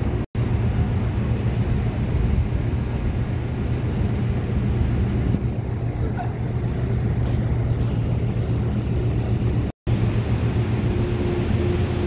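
Steady low rumble of ship engines mixed with wind buffeting the microphone, with no distinct horn blast. The sound cuts out briefly twice, just after the start and near the end.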